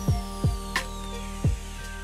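Background music with a drum beat: kick drum and sharp snare hits over held notes.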